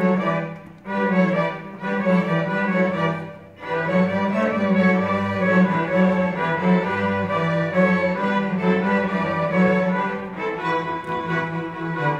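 String orchestra of violins and cellos playing, bowing sustained notes with a strong low cello line. The music drops away briefly twice, about one and three and a half seconds in, then carries on.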